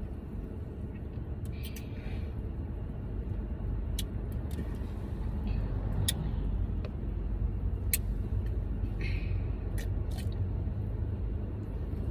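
Steady low rumble of a car, heard inside its cabin, with about seven sharp clicks scattered through it.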